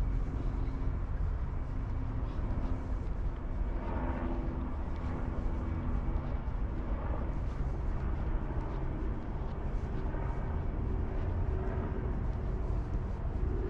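Steady low rumble of city traffic, with the hum of engines fading in and out over it.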